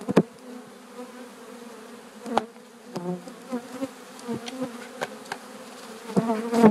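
A mass of Italian honeybees buzzing with a steady hum as a package of bees is shaken out into a hive. A few sharp knocks break through, the loudest just after the start and near the end.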